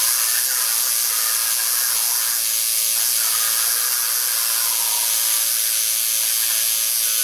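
Electric tattoo machine buzzing steadily as the needle goes into the skin of a forearm for the first lines of a tattoo.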